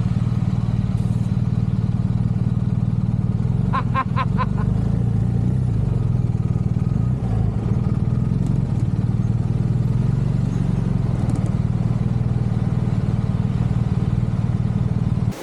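Motorcycle engine running steadily at low, even revs while riding slowly. About four seconds in there are four quick short pitched tones.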